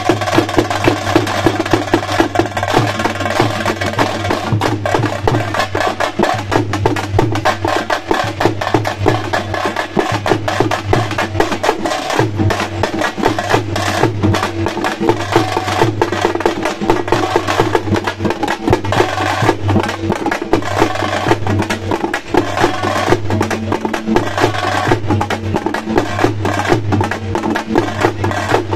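A group of drums slung from the shoulder, beaten with sticks, plays a fast, dense rhythm with no pause.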